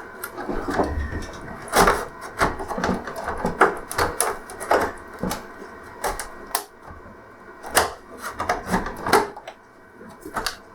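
Irregular plastic clicks, taps and knocks as a pick pries at the clips holding an LCD TV's plastic case together along its bottom edge.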